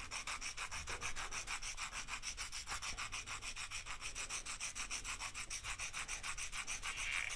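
Charcoal pencil rubbed back and forth on the sandpaper face of a sanding paddle, a steady run of quick, even scratching strokes, sanding the charcoal core down to a long sharp point.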